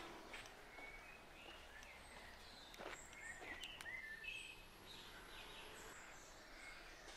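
Faint birdsong: scattered short chirps and whistles from small birds over a faint low hum, the distant noise of gravel extraction machinery.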